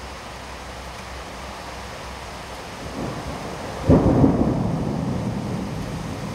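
Heavy downpour hissing steadily, then a clap of thunder about four seconds in, preceded by a brief rumble and followed by a long low rumble dying away.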